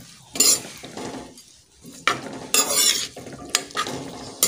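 A metal spoon stirs and scrapes noodles and chopped vegetables around a metal pot. There are several scraping strokes, the longest about two and a half seconds in, over a light sizzle of frying.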